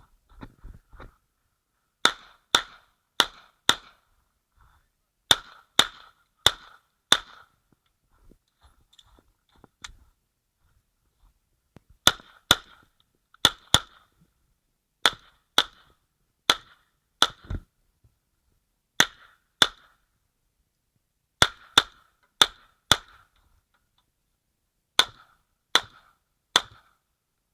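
9mm Uzi Pro pistol fired semi-automatically in quick strings of two to four shots about half a second apart, with pauses of one to four seconds between strings.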